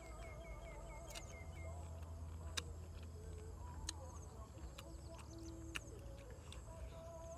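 Faint eating sounds of pickled mustard greens and boiled duck egg being bitten and chewed, with a few sharp crisp clicks spread through. Small birds chirp in the background, with a quick run of chirps in the first second or so, over a low steady hum.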